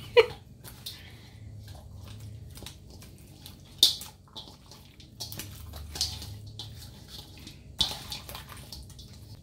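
Hands mixing wet, seasoned tilapia pieces in a stainless steel bowl: squelching and sliding of fish flesh, with scattered sharp clicks as fish and fingers knock the bowl, the loudest about four seconds in and near eight seconds.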